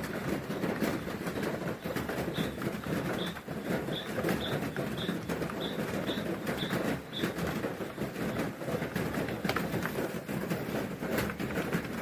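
Keys of a Mofii 666 wireless keyboard with round keycaps clacking irregularly as someone types, over a steady background rumble. A run of about ten short high chirps, roughly two a second, sounds through the middle.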